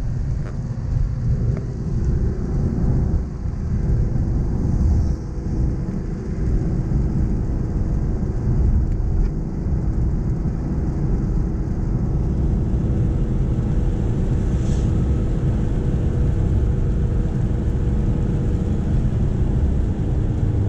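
Inside the cab of a Nissan Navara D40 pickup on the move: a steady low rumble of engine and road, with a couple of even engine tones running through it.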